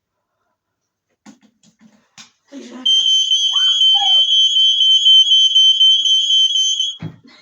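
A smoke alarm sounding its test alarm: one loud, continuous high-pitched tone lasting about four seconds, starting about three seconds in and cutting off suddenly.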